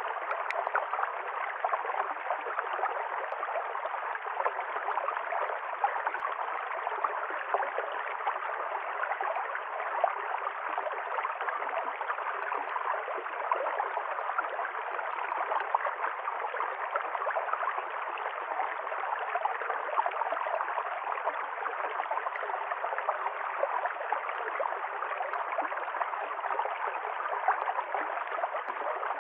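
River stream flowing and gurgling steadily over stones.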